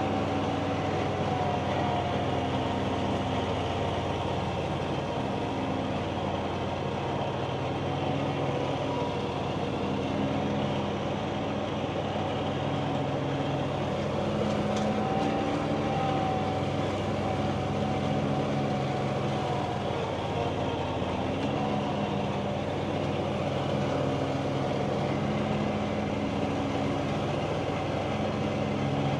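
An engine running steadily at a near-constant speed, its low drone shifting slightly in pitch every few seconds.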